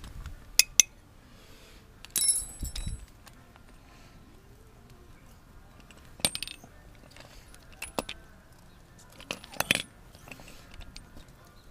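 Scattered sharp metal clicks and clinks of hand tools or parts being handled and set down, with one louder ringing clink about two seconds in.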